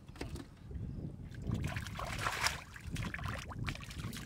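Hands sloshing and splashing through shallow muddy paddy water in irregular strokes while groping for fish, busiest around the middle.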